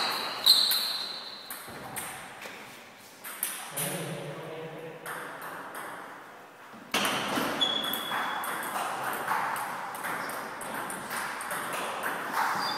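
Table tennis balls clicking sharply off bats and tables during rallies, some hits with a short high ring. There is a quick run of hits at the start, fewer hits in the middle, and a livelier stretch of rapid hits from about seven seconds in.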